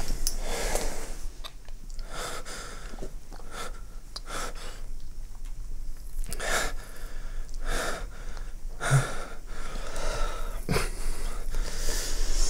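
Close, audible breathing: short breaths and sighs at uneven intervals, with a brief low voiced sound about nine seconds in.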